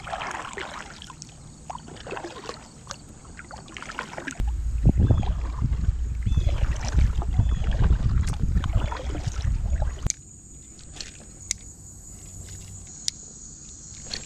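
Kayak paddle strokes swishing and splashing through creek water, about one a second. From about four to ten seconds in, a heavy low rumble on the chest-mounted camera's microphone covers them, stopping suddenly, followed by a few light ticks and knocks.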